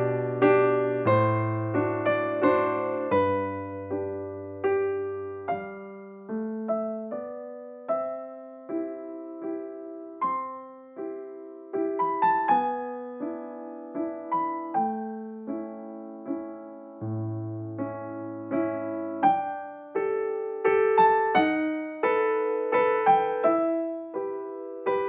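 Background piano music: a slow melody of single notes, each struck and left to fade, over a few held low bass notes.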